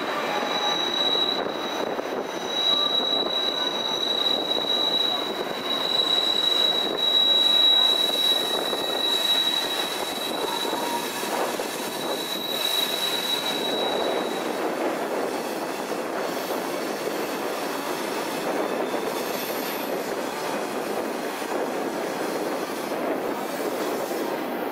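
Passenger train's steel wheels squealing against the rails as the train rounds a curve, a steady high-pitched squeal that stops about halfway through, over the continuous running noise of the rail cars.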